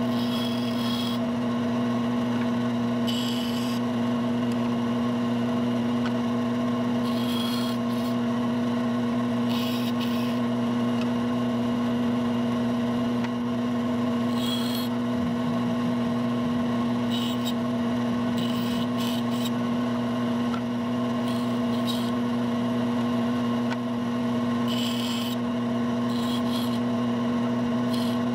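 Bandsaw running with a steady hum while its narrow blade cuts the teeth of a small gear blank: about a dozen short rasping cuts, one every second or few, with the saw running free in between.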